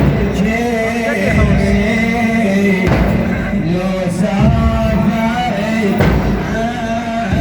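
Male voice singing a drawn-out, ornamented Arabic religious chant over a heavy low accompaniment.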